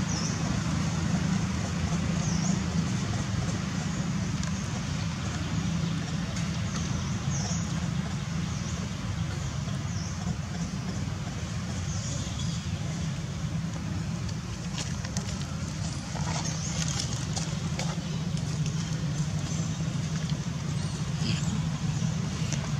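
Steady outdoor ambience: a constant low hum of distant motor vehicles under murmuring background voices, with faint short high chirps every so often.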